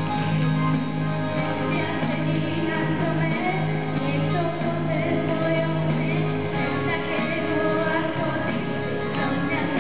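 A young girl singing pop-style into a handheld microphone over a recorded backing track played through a loudspeaker. The backing music runs throughout, and her voice comes in a few seconds in.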